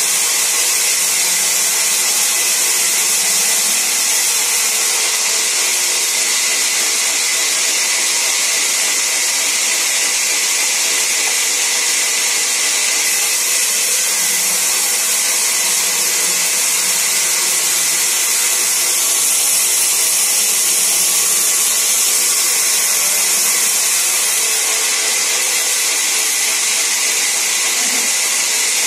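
Large vertical sawmill band saw running and ripping long planks into thin boards, a loud, steady noise without breaks.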